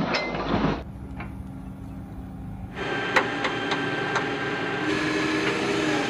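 Excavators at work across several short clips cut together: a diesel engine running steadily, with a few sharp metal clanks and knocks as the bucket dumps soil and stones.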